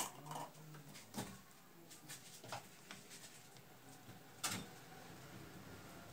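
About four light clicks and knocks of metal and plastic bulb parts being handled at a hand-lever press, the loudest about four and a half seconds in.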